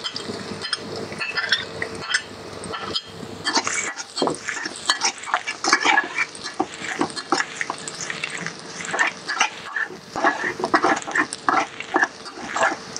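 Chopped garlic sizzling in oil in a steel wok while a metal spatula scrapes and clatters against the pan in quick irregular strokes. The strokes are sparse for the first few seconds and come thick and fast after.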